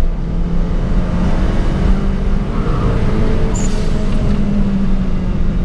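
Turbocharged 16-valve four-cylinder engine of a VW Polo G40, heard from inside the cabin, pulling in gear under acceleration with its revs climbing gradually.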